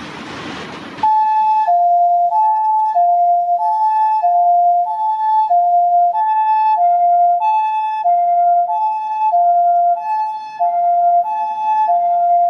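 Japanese ambulance's two-tone electronic siren sounding its hi-lo "pee-poh" call, a higher and a lower tone alternating evenly about every 0.6 s. It switches on about a second in, after a brief rush of noise, as the ambulance sets off on an emergency call.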